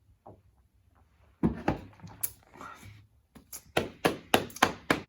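Chugging soda straight from a 2-liter plastic bottle. There is one loud thunk about a second and a half in, then a quick run of about seven sharp, loud thunks near the end.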